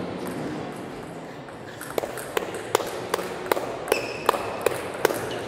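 A table tennis ball bouncing repeatedly: about nine light, sharp clicks at an even pace, roughly two or three a second, starting about two seconds in. Short high squeaks, like shoes on a sports-hall floor, come between them.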